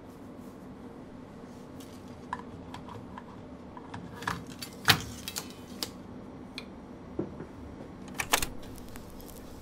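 Film reels and the rollers of a flatbed film editing table being handled: scattered small clicks and knocks over a steady low hum, the sharpest knock about five seconds in and a quick pair a little after eight seconds.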